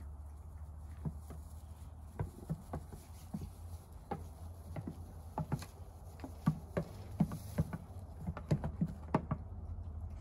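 Small goat kids' hooves tapping and scrabbling on a plastic tub and an upturned plastic bucket: irregular sharp taps, some in quick clusters, over a steady low hum.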